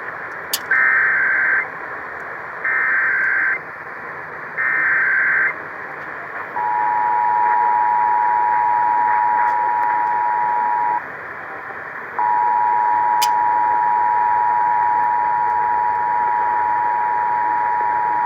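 Emergency Alert System SAME header: three short bursts of buzzing digital data tones about a second apart. Then the two-tone EAS attention signal, a steady, harsh held chord that drops out for about a second midway and resumes. All of it is received over AM radio with a constant background hiss.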